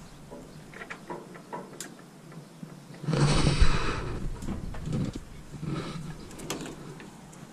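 Handling noises on a vending machine's front panel: a few light clicks, then about three seconds in a loud scraping rustle with a thump, followed by several softer knocks.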